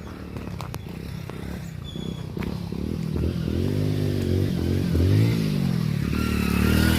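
Motorcycle approaching, getting louder, its engine revving up and down a few times in the second half.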